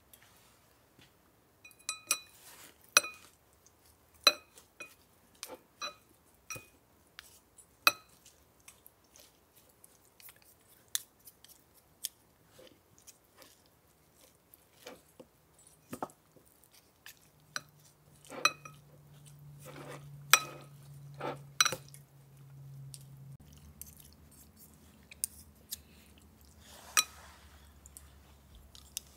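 Chopsticks tossing wild tree shoots in a sesame vinegar-miso dressing, clicking and tapping against the bowl at irregular intervals with soft squelchy mixing between the taps. A faint low hum comes in a little past the middle.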